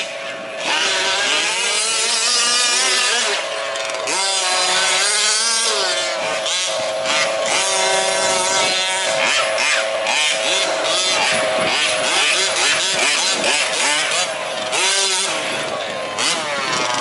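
Several 1/5-scale RC off-road trucks' small two-stroke petrol engines revving and idling together, their pitch rising and falling as the throttles are worked, over one steady engine tone.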